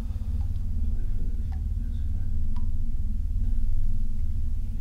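A steady low rumble, with three faint ticks about a second apart in the first few seconds.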